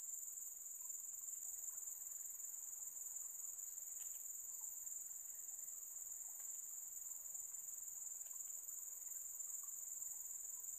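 Steady high-pitched chorus of insects, a continuous shrill drone with no break, with a few faint ticks scattered through it.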